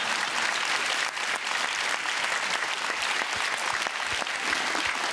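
Large theatre audience applauding steadily. About three seconds in, a regular low thumping joins the clapping at roughly two or three beats a second.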